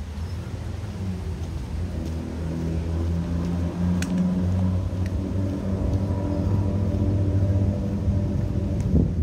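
A motor vehicle's engine running steadily with a low hum, growing louder over the first few seconds and staying strong until it cuts off at the end.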